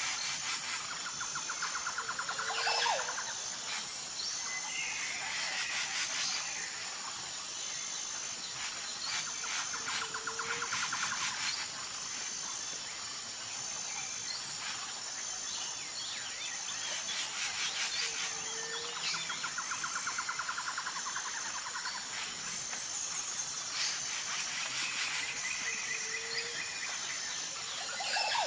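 Tropical jungle ambience: a steady high insect buzz, with birds calling over it. A trilling call ending in a falling note comes back about every eight seconds.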